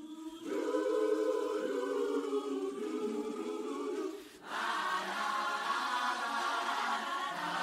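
Choral music: a choir singing long held chords, breaking off briefly about four seconds in with a click, then coming back in fuller and higher.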